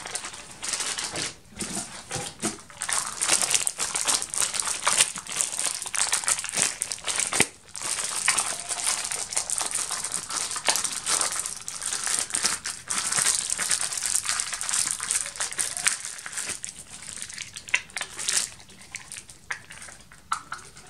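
Clear plastic parts bags crinkling and rustling as they are handled and opened, with a short pause about seven and a half seconds in and quieter handling near the end.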